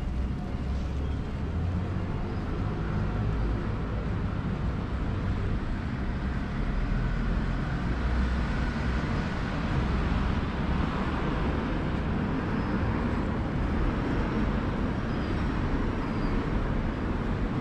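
Road traffic on a city street: cars passing on the road alongside, a steady traffic noise that swells a little around the middle.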